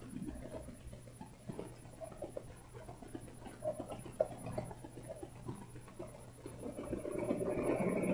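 Faint close handling noise of string and small beads, scattered little clicks and rustles as a knot is tied. A steadier hum swells up near the end.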